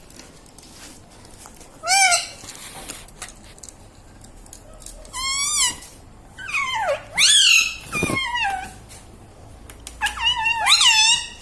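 Pet rose-ringed (ringneck) parakeet calling in four bouts: short, high, bending calls, with the longest run in the middle and another near the end.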